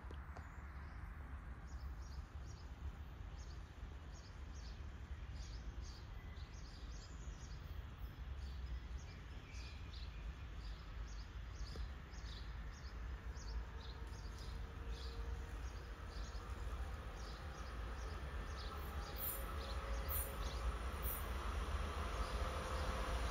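Small birds chirping on and off over a low, steady rumble, with a train's approach slowly growing louder near the end.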